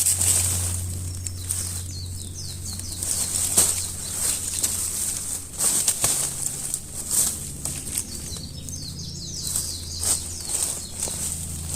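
Footsteps crunching and rustling through dry leaf litter on a forest trail, irregular and uneven, with a few faint bird chirps behind.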